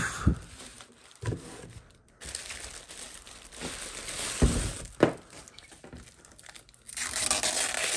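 Thin plastic bag and plastic wrapping crinkling as they are pulled off and peeled away from a floodlight camera, with a few dull knocks of the unit being handled on a table.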